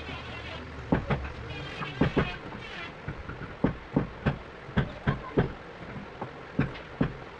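Sharp, separate knocks of something striking wood during chair-making, roughly one or two a second at uneven spacing, over a low steady hum.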